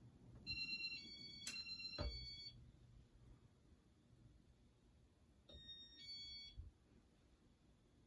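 Electronic beeps from a Casablanca ceiling fan's Inteli-Touch control as the fan is switched to a lower speed: a run of stepped beep tones with a couple of sharp clicks in the first two seconds, then a shorter run of beeps about five and a half seconds in.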